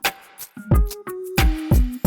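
Background music with a steady beat: kick and snare-like drum hits under held synth or bass notes, in a hip hop style.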